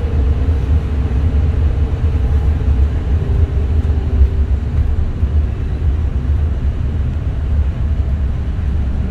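Cabin sound of a VDL Citea SLF 120 Electric city bus on the move: a steady low rumble of the ride and tyres on the road, with a faint electric-drive whine that falls in pitch and fades over the first few seconds.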